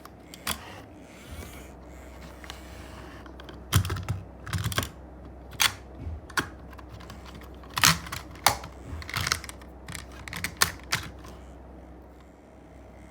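Hard plastic toy vehicles being handled and moved about: irregular clicks and clatters, coming in clusters, loudest about four and eight seconds in.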